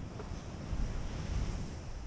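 Wind buffeting the camera's microphone in uneven low rumbling gusts, over the steady wash of ocean surf.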